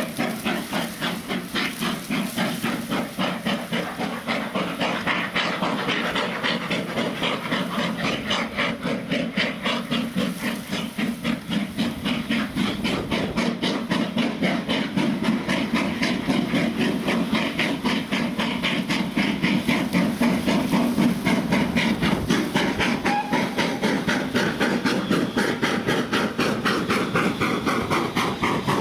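Steam locomotive working hard, its chimney exhaust beating in a fast, even rhythm of hissing chuffs, getting a little louder past the middle.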